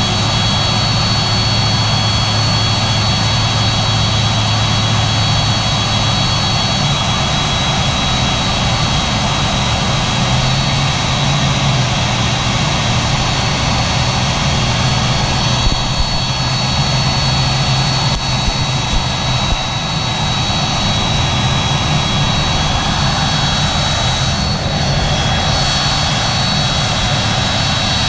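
Boeing 767-300F's General Electric CF6-80C2 turbofan engines running steadily, a continuous rush with a high whine of several steady tones over a low hum.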